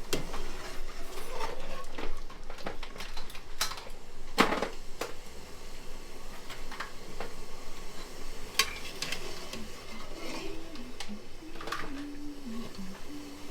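Kitchen clatter: dishes, pots and utensils knocking and clinking at irregular intervals, busiest in the first few seconds.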